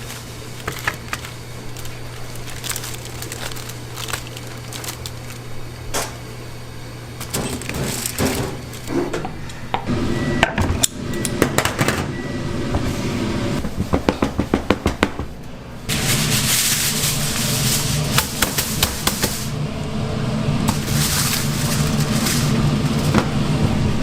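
Kitchen work: clicks and knocks of utensils and dishes over a steady low hum, with a quick run of sharp knocks a little past the middle and a louder, busier clatter from about two-thirds of the way in.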